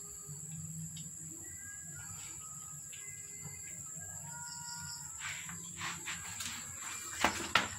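Steady high-pitched insect trill with faint, scattered bird chirps, and two sharp knocks near the end.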